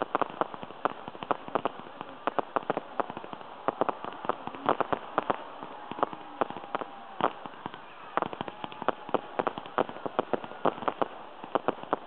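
Fireworks display: aerial shells firing and bursting overhead in rapid, irregular bangs and pops, several a second, with no letup.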